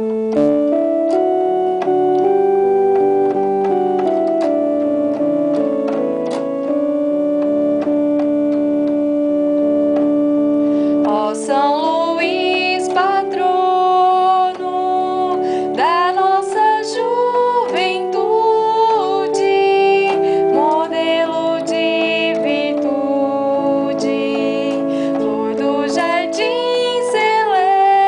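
Devotional hymn accompanied on an electronic keyboard: sustained, organ-like chords, then about eleven seconds in a high melody with vibrato enters over them, sung by a woman.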